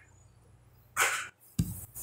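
Coffee-drinking and table-handling sounds: quiet at first, then a short breathy mouth sound from the sip about a second in, followed by a low thump and light handling noise near the end.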